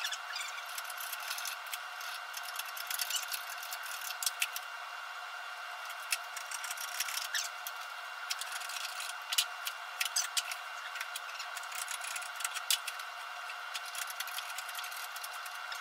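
Scattered light clicks and knocks of a teak block and hand tools being handled on a wooden workbench and set in the bench vise, over a steady hum.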